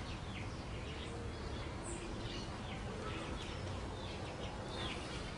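Small birds chirping: a scatter of short, quick chirps over a steady low background noise.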